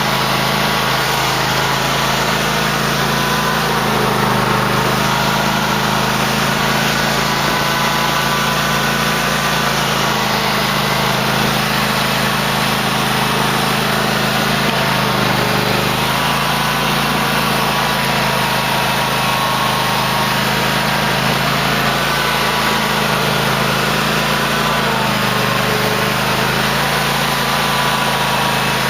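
2008 Cub Cadet LT1050 lawn tractor's engine running steadily while plowing snow, its pitch shifting slightly a few times.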